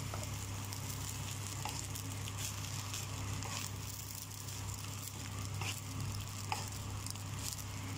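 Egg fried brown rice sizzling in a nonstick pan as a wooden spatula stirs and tosses it, with a few light scrapes of the spatula against the pan.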